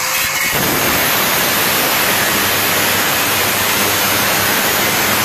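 Angle grinder finishing its spin-up, a rising whine that levels off about half a second in, then cutting into a van's sheet-steel bulkhead panel with a steady, loud, harsh grinding hiss.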